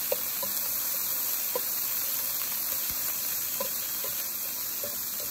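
Diced vegetables sizzling steadily in oil in a nonstick frying pan as a plastic spoon stirs them, with a few light clicks of the spoon against the pan.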